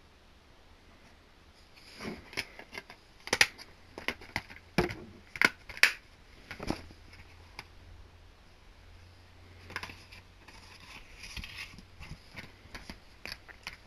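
DVD box-set packaging being handled: a quick run of sharp plastic clicks and crinkles, then scattered lighter clicks near the end.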